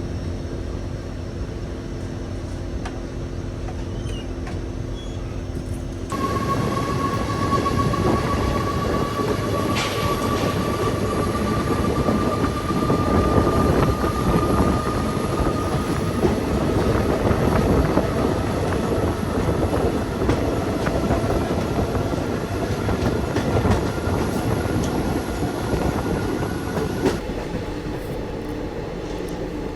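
Poorna Express train running on the rails, rumbling with clickety-clack. About six seconds in it turns abruptly louder, and a steady high-pitched tone rises slowly in pitch. Near the end it drops back just as abruptly.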